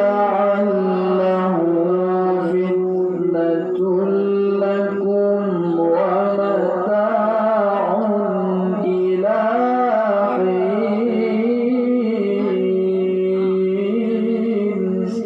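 A man's voice in melodic Quran recitation (tilawah), holding long, steady notes with wavering ornamental turns between them; it breaks off at the very end.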